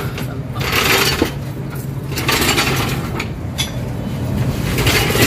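Metallic clinks and mechanical rattling from a Mitsubishi Strada's rear differential and propeller shaft as the drivetrain is worked by hand to check for play after the differential reset, over a steady low hum.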